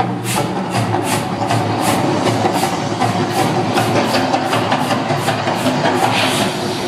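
Percussion-driven show music over outdoor loudspeakers, a fast, even drum beat of about four strokes a second, with a dense steady rumble underneath as the volcano show erupts.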